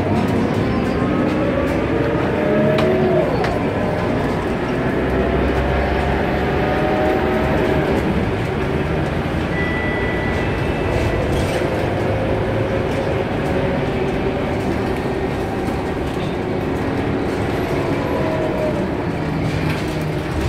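Inside a city bus on the move: steady engine drone and road rumble, with a whine that rises in pitch several times as the bus gathers speed.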